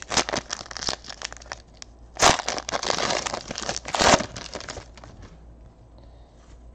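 Foil wrapper of a trading card pack crinkling as it is torn open by hand, with two louder rips about two and four seconds in, then only faint rustling as the cards come out.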